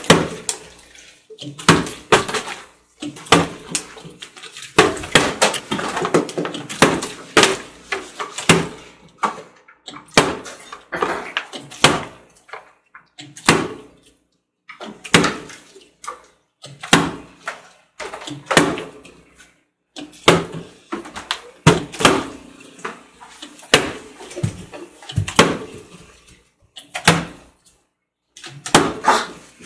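Partly filled plastic water bottles being flipped and landing on a glass tabletop: a long string of sharp knocks at irregular intervals, roughly one every second or two.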